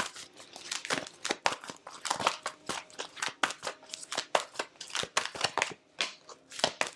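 Tarot cards being shuffled by hand: a fast, uneven run of crisp flicks and rustles, several a second, with a brief pause about six seconds in.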